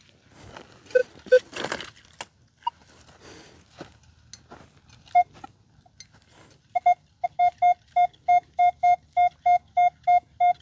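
Scattered scrapes and clicks, then from about seven seconds in a metal detector beeping rapidly and evenly at one pitch, about four to five beeps a second. This is a strong target signal, which the detectorist reads as a very good signal with a target ID of 78.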